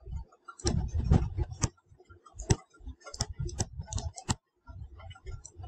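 Irregular taps and clicks of a stylus writing on a tablet surface, a dozen or so spread unevenly, with soft low bumps between them.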